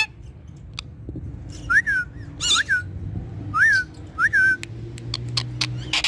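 Indian ringneck parakeet giving a handful of short whistled calls, each note gliding up and then down.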